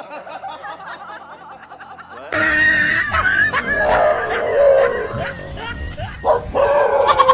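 Music with a laughing voice, then, from about two seconds in, a dog barking in alarm at a stuffed toy tiger swung at it, with laughter over it.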